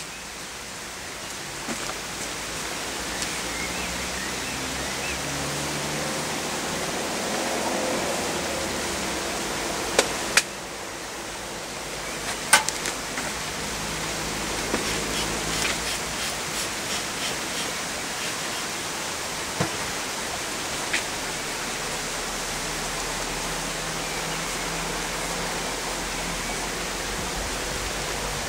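Honeybees buzzing around an open hive over a steady hiss, with a few sharp knocks of wooden hive parts being handled about ten, twelve and twenty seconds in.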